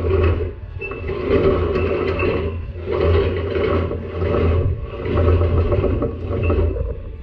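Combine head's sickle bar being pulled out by hand in four long pulls, the metal bar scraping as it slides out.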